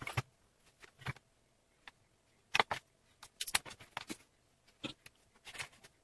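Leatherworking tools and a round stainless-steel weight being handled and set down on the work board: an irregular run of light clicks and knocks, busiest from about two and a half to four seconds in.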